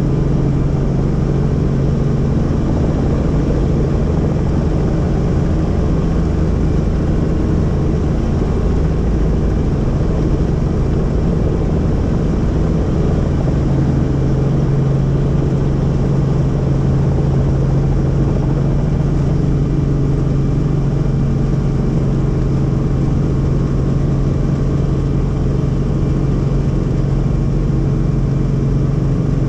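Helicopter in flight: a steady, loud drone of rotor and engine noise with a constant low hum, unchanging throughout.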